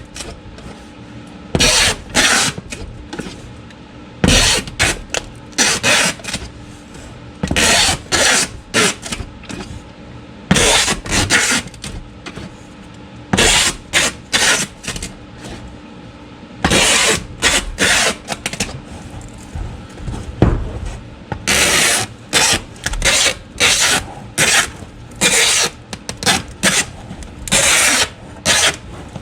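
Packing tape pulled off the roll in many quick, loud rasping strips and pressed onto a cardboard shipping box to seal it.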